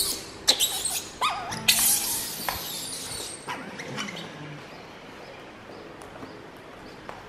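Baby macaque squealing as it is handled: several short, loud, high calls in the first three seconds, after which it settles and only faint sounds remain.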